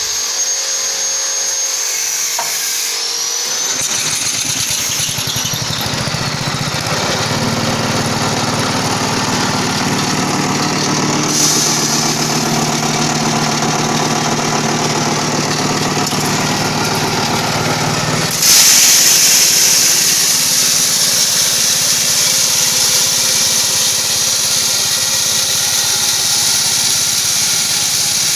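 Corn grinding mill starting up about four seconds in and running steadily with a low hum. About two-thirds through it suddenly grows louder and harsher, with much more hiss, and keeps running that way.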